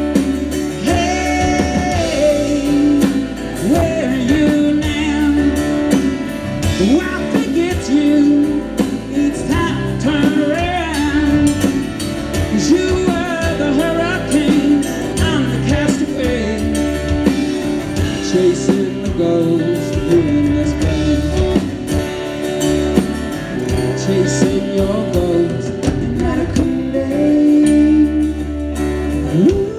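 Live rock band playing with singing: electric and acoustic guitars, bass guitar and drum kit under a lead vocal.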